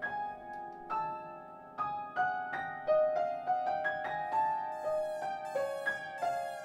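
Background music: piano playing a free, meandering melody of single struck notes, a few each second.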